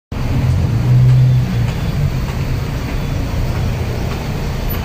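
Street traffic noise: a steady low rumble of vehicle engines, with a louder engine hum about a second in.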